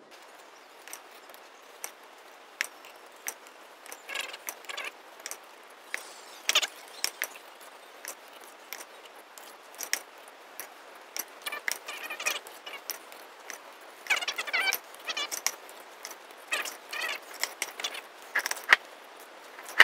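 Metal spoons clicking and scraping against each other and against metal muffin trays as cake batter is spooned into paper cupcake cases: irregular sharp clinks with short bursts of scraping now and then.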